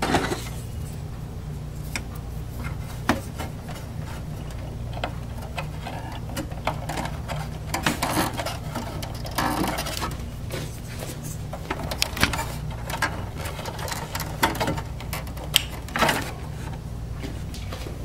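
Plastic power-supply cable connectors being pushed into a computer's sockets and wire bundles being shifted by hand: scattered clicks and rustles, with a sharp snap near the end as a connector latches home. A steady low hum runs underneath.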